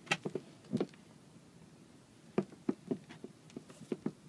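Irregular soft knocks and clicks as a coiled rubber shore power cord is handled and hung on a stainless steel wall hook, in two short clusters: one at the start and one from the middle on.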